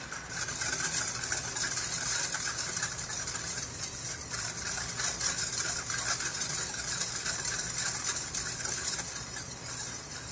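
Wire whisk stirring sugar into water in a stainless steel pot, a rapid, continuous scraping and swishing of the wires against the metal.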